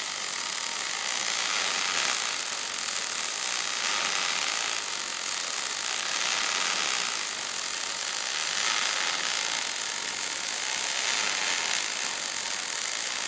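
Stick welding arc crackling and sizzling steadily as a welding cobot lays a bead, a continuous high hiss with no breaks.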